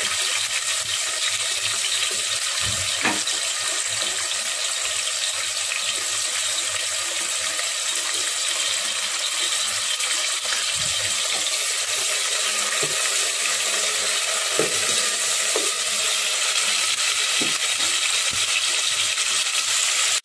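Chopped tomatoes, green chillies and curry leaves sizzling steadily in hot oil in an aluminium pot, with a few faint pops.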